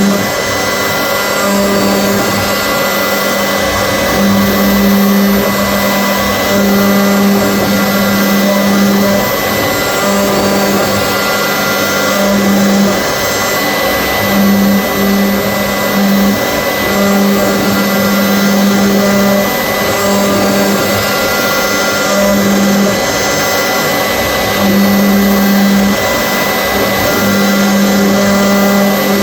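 CNC machine running: a steady machine rush with a fixed high whine, and a low hum that starts and stops every second or two.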